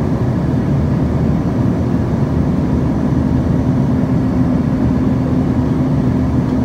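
Steady drone of a passenger aircraft's engines and airflow heard inside the cabin, with a constant low hum running through it.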